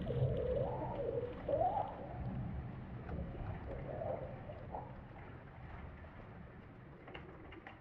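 Sound-designed dinosaur call: a low, wavering moan gliding up and down in pitch over a low rumble, fading steadily away.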